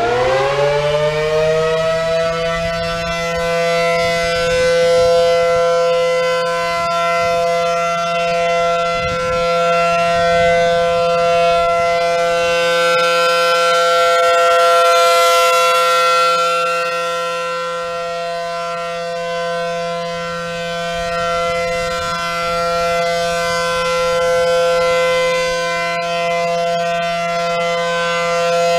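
ACA Allertor-125 outdoor warning siren finishing its wind-up in the first couple of seconds, then holding a steady alert tone, a chord of sustained pitches. It slowly swells and fades in loudness as the rotating siren head turns. This is the one-minute steady alert of a tornado siren test.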